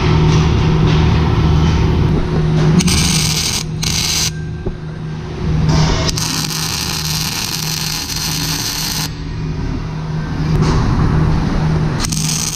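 A steady low machine hum of a steel fabrication shop, with bursts of hissing noise a few seconds in and through the middle. Near the end an electric welding arc strikes up again with a crackling hiss.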